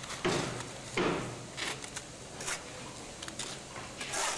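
Steel trowel scooping lime mortar off a hawk and throwing it onto a wall patch: a series of short, faint scrapes and wet slaps, the two strongest in the first second.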